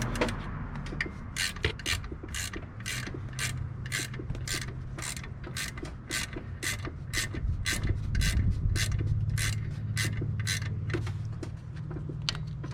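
Ratchet wrench clicking in an even rhythm of about two clicks a second as a bolt on the alternator mount is worked. A steady low hum runs underneath.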